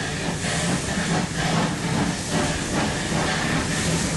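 DD17 steam tank locomotive working a train: a steady hiss of steam with a regular beat about three times a second.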